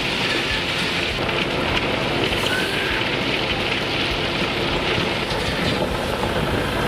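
Heavy construction vehicle running with a steady, even mechanical rumble and rattle.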